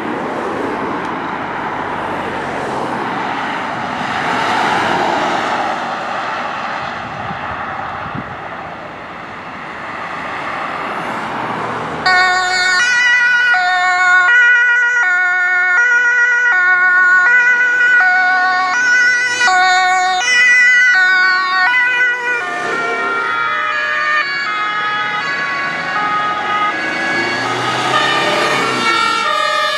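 Rushing vehicle and road noise for about twelve seconds. Then a German emergency vehicle's two-tone siren starts abruptly, stepping back and forth between its two pitches. In the last several seconds the siren tones overlap and blur, with more engine rumble underneath.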